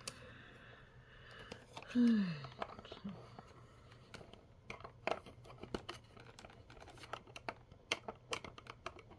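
Small plastic toy pieces being handled and fitted into a display case: scattered light clicks and taps, thickest in the second half. A short falling hum of a voice about two seconds in.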